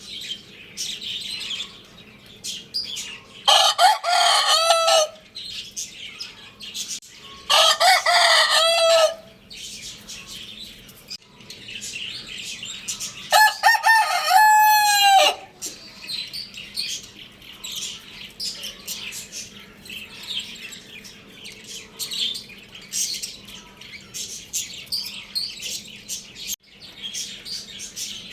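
Rooster crowing three times, about four, eight and thirteen seconds in, each crow lasting one and a half to two seconds. Small birds chirp constantly underneath.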